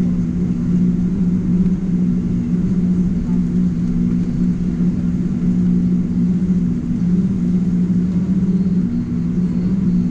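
Steady cabin drone inside a Boeing 777-200ER airliner: a low rumble with two steady hum tones, neither rising nor falling.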